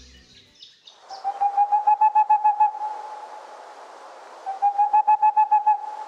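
Boreal owl (Tengmalm's owl) song: two rapid series of hoots on one pitch, about seven notes a second, each series lasting about one and a half seconds, over a steady background hiss.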